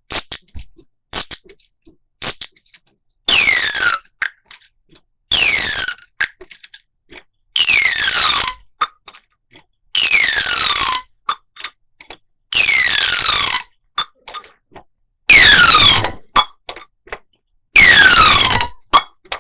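Plastic corrugated pop tubes being pulled and pushed, about seven strokes: each a roughly one-second zipping tone that falls steeply in pitch, with small clicks between strokes. The last two strokes are the loudest.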